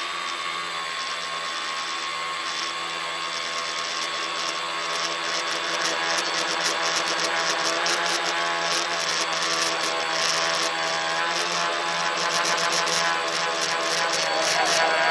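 Tricopter's electric motors and propellers whining steadily, heard from a phone riding on the craft, growing louder through the second half.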